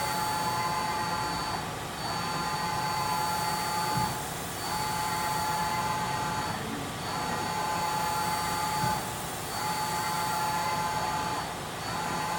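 Mazak MTV-515/40N CNC vertical machining center running, a motor whine of several steady tones. The whine stops briefly and starts again about every two and a half seconds, with a faint knock at some of the changes.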